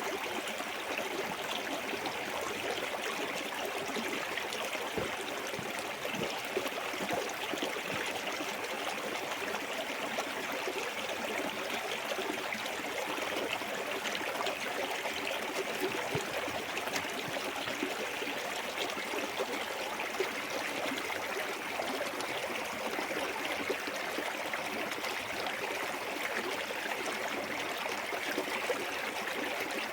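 Small woodland waterfall and clear stream running, a steady rush of water with splashing and gurgling.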